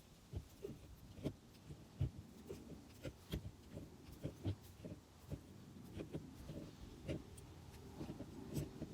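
Irregular soft knocks, clicks and scrapes of hands and tools working on a buried water-line fitting in hard ground, about one or two a second.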